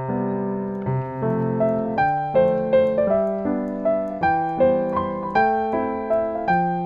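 Background music: a piano tune with notes struck at an even pace, about two or three a second.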